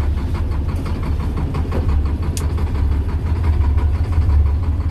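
Old Volvo semi truck's diesel engine idling steadily with a low rumble, just after a hard cold start.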